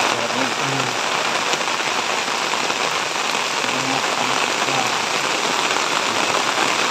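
Heavy rain falling steadily on tea bushes and open ground: a dense, even hiss.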